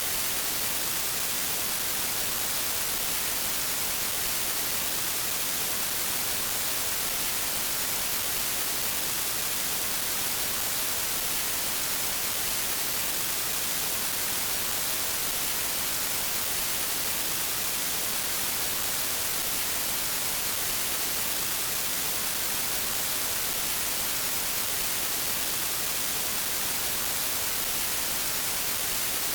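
Steady static hiss like white noise, even and unchanging, brightest in the high end.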